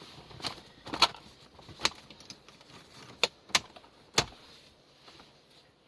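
Six sharp clicks and knocks at irregular intervals: plastic dash trim, clips and wiring-harness connectors being handled and plugged in.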